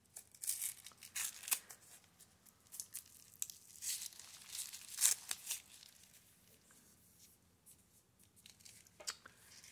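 Purple tissue paper being torn and crinkled by hand as a taped-up package is unwrapped: irregular rustles and tears, busiest in the first five seconds, then only a few faint rustles.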